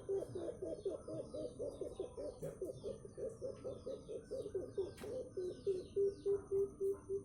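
A puter (domestic turtle dove) giving an unusual call: a fast run of short low coos, about five a second, with fuller, more spaced notes near the end. Small birds chirp higher up, and there is one sharp click about five seconds in.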